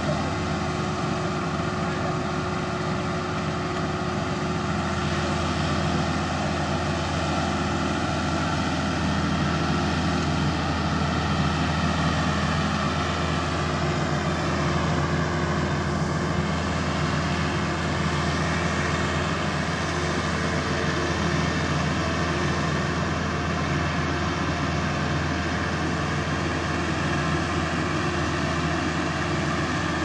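Rice combine harvester running steadily at work: an even engine drone with machinery noise that holds constant throughout.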